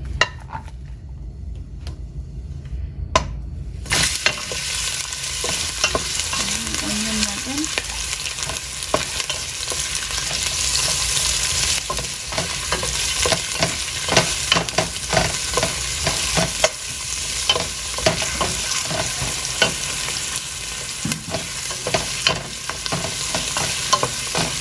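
Sliced onion frying in hot oil in a stainless steel pan, sizzling steadily, with a wooden spoon scraping and clicking against the pan as it is stirred. The sizzle starts suddenly about four seconds in, when the onion goes into the oil; before that only a few spoon clicks on the empty pan.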